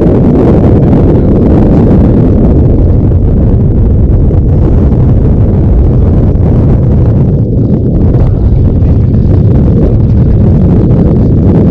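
Wind buffeting the microphone: a loud, steady low rumble with no let-up.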